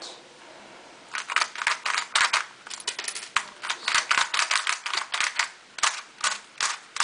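Plastic clicking and clacking of an mf8 Square-1 II puzzle's layers being turned quickly by hand. A rapid, irregular run of clicks starts about a second in.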